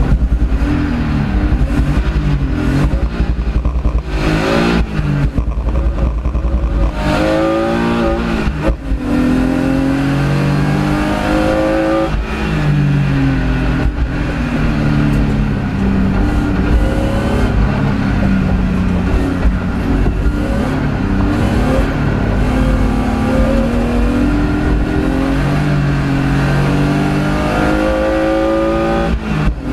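BMW E36 race car's engine, heard from inside the cabin, accelerating hard and revving up and down repeatedly through the gears as it is driven at speed.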